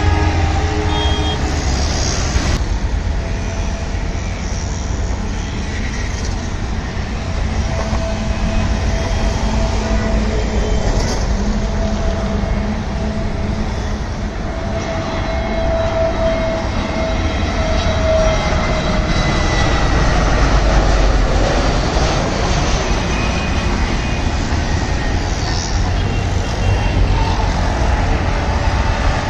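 Twin-engine jet airliner on landing approach passing overhead. A steady jet rumble grows to a peak about two-thirds of the way through, with a whine that falls in pitch as the aircraft passes.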